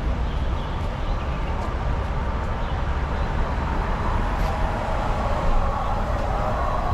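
Alexander Dennis Enviro500EV battery-electric double-decker bus pulling in to a stop, over a steady low street-traffic rumble. A whine grows louder and falls slightly in pitch in the second half as the bus draws up close.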